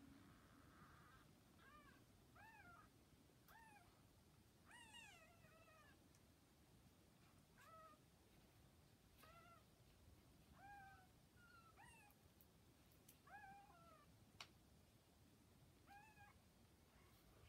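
Newborn kittens, under two days old, mewing: a faint series of short, high, squeaky cries that rise and fall in pitch, coming about once a second and sometimes in quick pairs.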